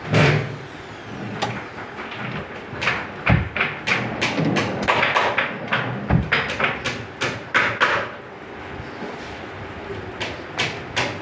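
Wooden drawers being pushed in and pulled out on metal ball-bearing drawer slides. A thump opens the sound, and a quick run of clicks and knocks follows through the middle as the drawers run and shut against the cabinet.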